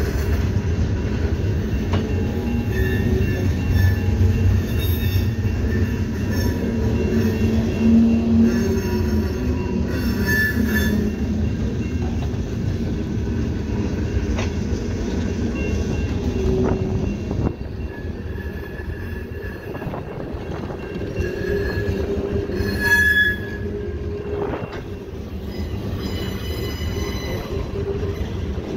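Freight cars rolling past on the rails: a steady low rumble of wheels on track, with wheels squealing in short high-pitched whines, loudest about 10 and 23 seconds in, and a few sharp clacks.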